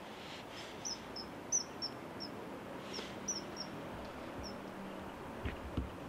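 Common kingfishers calling: a series of short, sharp, high-pitched notes, about a dozen, irregularly spaced, over a steady background hiss. A few low thumps near the end.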